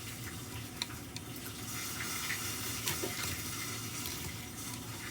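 Chicken pieces frying in hot oil: a steady sizzle with scattered sharp pops.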